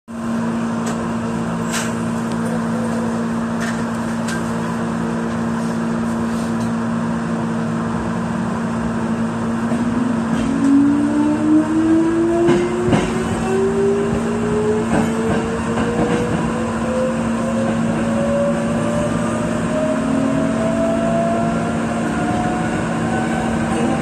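Inside a Nose Electric Railway 1700-series electric train: a steady hum of onboard equipment, then from about ten seconds in a whine that rises steadily in pitch as the traction motors accelerate the train, with wheel-on-rail rumble and knocks getting louder.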